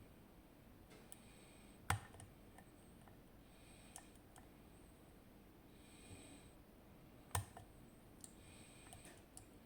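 Faint metallic clicks of lock picks working the finger pins of a zIKON SK6 high-security lock cylinder's sidebar, with two louder clicks, about two seconds in and about three-quarters of the way through, and scattered softer ticks.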